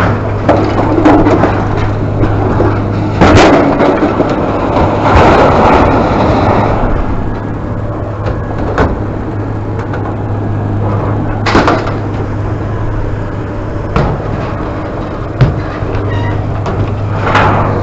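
A steady low drone with scattered knocks and clunks, a few close together in the first several seconds and single ones further apart after that.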